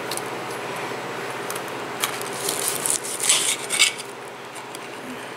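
Knife and fork cutting through a breaded chicken fried steak on a plate. The knife scrapes and clicks against the plate in a cluster between about two and four seconds in, over a steady low hum.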